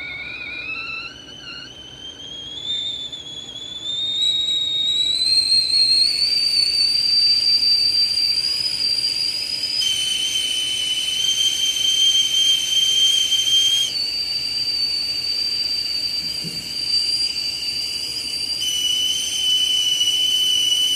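Chefs Secret 3.17-quart stovetop tea kettle whistling at the boil. The whistle rises in pitch and gets louder over the first few seconds, then holds steady, jumping between two pitches a few times.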